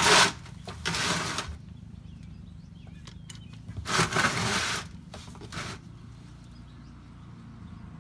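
Hand and tool handling noises while working on a car's rear differential plug from underneath: four short rustling, scraping bursts with a few light clicks between them, over a steady low hum.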